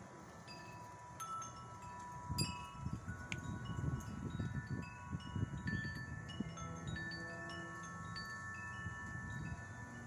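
Wind chimes ringing irregularly, several clear tones of different pitch overlapping and fading, over a low, uneven rumble that is strongest from about two to seven seconds in.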